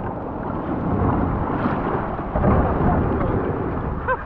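Surf breaking and washing up a steep shingle beach around a small boat's hull: a steady, dull, low rumble of water and wind on the microphone.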